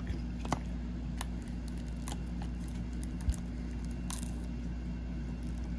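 A few faint clicks and taps from a plastic Blu-ray case being handled and a small keychain pocket-knife blade working at its shrink wrap, over a steady low hum.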